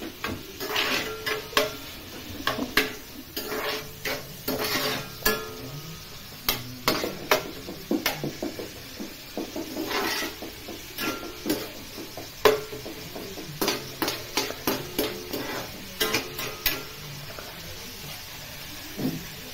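Chopped onions and green chillies being mixed by hand in a stainless steel bowl: irregular scraping and clinking of the bowl, some knocks leaving a short metallic ring.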